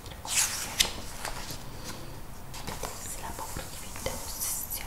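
A magazine page turned over, a papery swish ending in a crisp snap about a second in, followed by soft whispering and light rustling of the paper.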